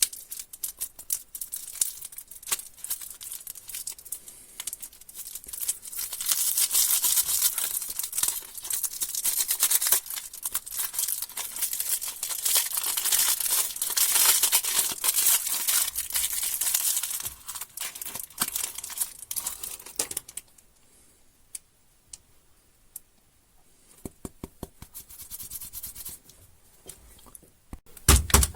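Plastic candy wrappers being torn open and crinkled, a dense crackling rustle that is loudest through the middle. It breaks off for a few seconds of near silence, then comes back as scattered sharp clicks and crinkles near the end.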